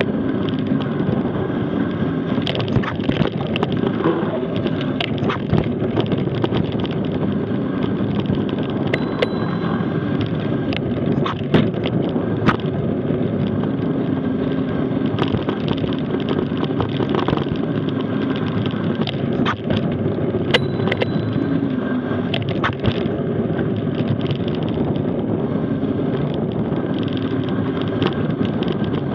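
Mountain bike rolling fast downhill on a dirt and gravel forest track: a steady rumble of tyres on the ground, broken by frequent sharp clicks and knocks as the bike rattles over bumps and stones.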